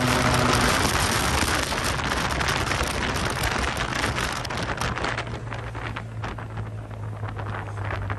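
Wind rushing over the microphone of a moving Yamaha TMAX maxi-scooter, with the scooter's engine humming steadily underneath. The wind noise eases over the last few seconds.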